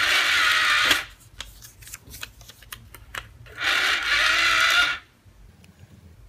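Toy electronic cash register's small motor whirring twice, each time for about a second, with light plastic clicks between.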